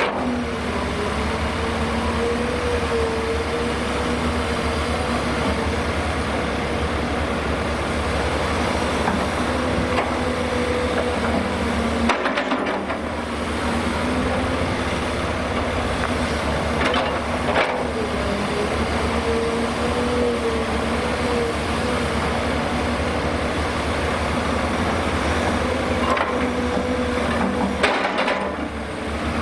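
Heavy construction machinery diesel engines running under load, from the Hyundai Robex 300LC-9S crawler excavator working as it loads a Cat 730 articulated dump truck. The engine pitch dips and recovers several times as the hydraulics take load, with a few brief knocks.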